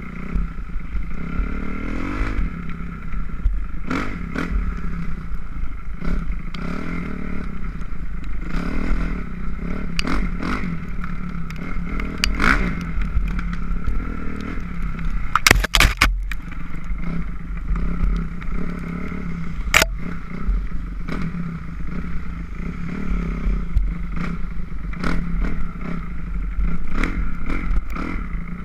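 A 2006 Kawasaki KX250F's four-stroke single-cylinder dirt bike engine being blipped again and again, its revs rising and falling in short bursts, with rattling throughout. A sharp knock stands out about halfway through, and a smaller one follows a few seconds later.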